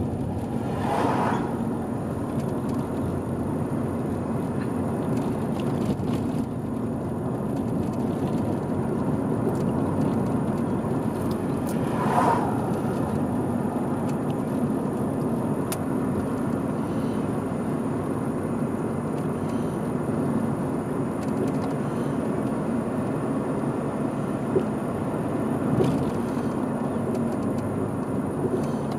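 Steady road and tyre noise from a car driving along a road. An oncoming pickup towing a horse trailer swishes past about a second in, and another vehicle passes about twelve seconds in.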